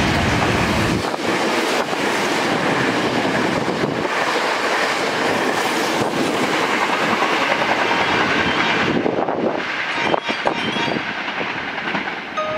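Hankyu Kyoto Line electric train passing through a station at speed without stopping: a loud, steady rush of running noise with the wheels clacking over rail joints.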